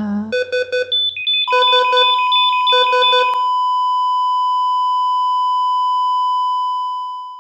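Hospital heart monitor: three quick runs of rapid beeps, then a long steady flatline tone from about a second and a half in that fades out at the very end. The flatline is the sign that the patient's heart has stopped.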